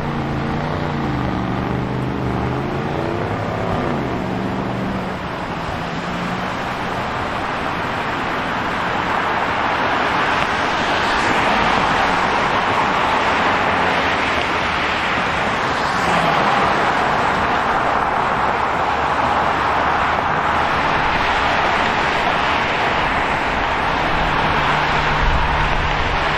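Street traffic. A vehicle engine changes pitch over the first few seconds, then there is a steady wash of tyre and engine noise from passing cars that grows louder after about ten seconds.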